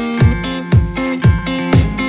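Background music: plucked strings over a steady beat of about two beats a second.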